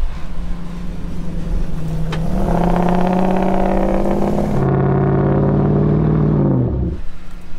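The yellow off-road recovery rig's engine revs up hard about two seconds in and holds high revs under load as it pulls a stuck pickup out of sand on a rope. Its pitch steps down about halfway through, and the engine drops back to idle near the end.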